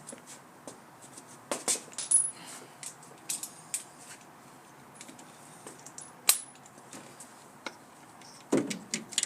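Irregular metallic clinks and taps of hand tools, a socket wrench on extensions, knocking against metal parts in a car's engine bay, with a few louder clanks spread through.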